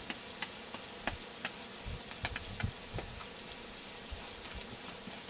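Horse's hooves on a sandy arena: soft, irregular thuds and clicks as it walks, over a steady faint hum.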